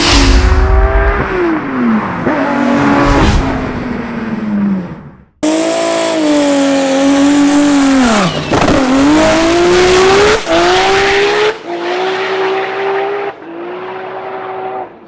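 Drag race car engines revving hard in several short clips cut together, their pitch climbing and dropping again and again, with a brief break about five seconds in.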